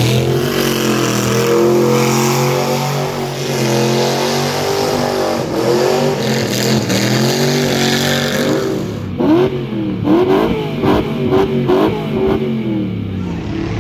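Chevrolet 327 small-block V8 in an MG Midget revving hard through a burnout, its pitch rising and falling. After about nine seconds it turns choppier, with short quick revs and clicks.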